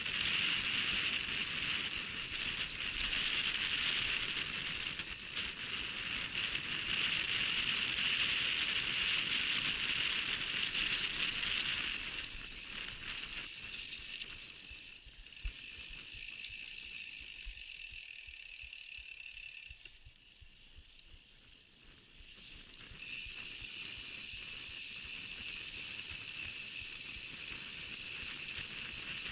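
Mountain bike riding on a sandy dirt road: a steady hiss of tyres on the dirt with rattling from the bike. It eases off about halfway through and nearly dies away for a few seconds before coming back.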